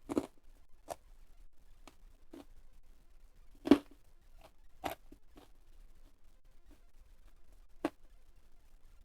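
A person eating crisp food: a scattering of short, sharp bites and chewing crunches at irregular intervals, the loudest a little past the middle, with quiet between.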